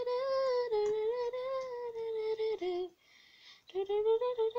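A girl humming a wavering, drawn-out tune, breaking off briefly about three seconds in and then humming again.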